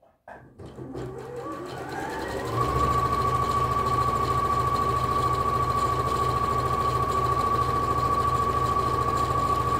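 Bernette b38 computerized sewing machine stitching fabric: the motor starts about a third of a second in and speeds up with a rising whine over the first couple of seconds, then runs steadily at full speed with a rapid needle rhythm.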